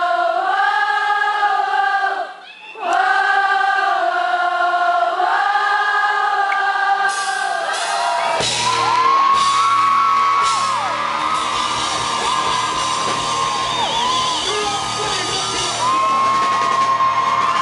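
Live rock concert: long sustained choir-like sung chords that shift every second or two. About eight seconds in, the full band with drums comes in under a lead vocal line, with crowd cheering over it.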